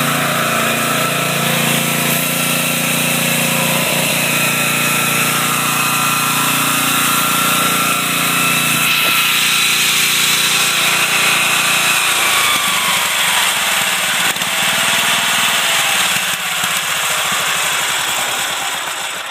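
Homemade generator's engine running under heavy load together with an air compressor. About twelve seconds in its pitch sags, and it grows quieter near the end.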